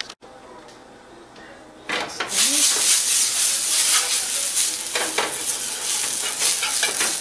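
Butter sizzling on a hot nonstick griddle pan, starting suddenly about two seconds in and holding steady, with a spoon scraping and clicking against the pan as it spreads the butter.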